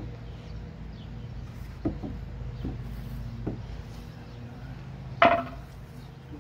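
A few sharp knocks over a steady low hum, with one much louder knock about five seconds in.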